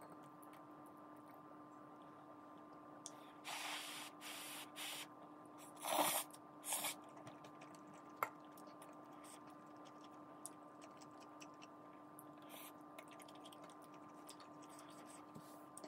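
A person eating instant ramen noodles: a few short slurps about three and a half to five seconds in and again about six to seven seconds in, then a single sharp utensil click, over a steady faint hum.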